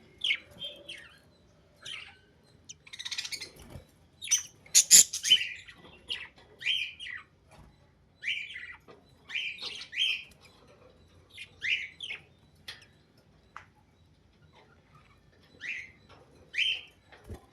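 Budgies chirping in short, repeated calls, with a cluster of louder, harsher calls about four to six seconds in.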